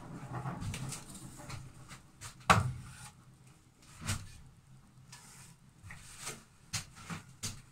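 Handling knocks and clatter of wooden battens being picked up and moved. One sharp knock about two and a half seconds in is the loudest, followed by a few lighter knocks.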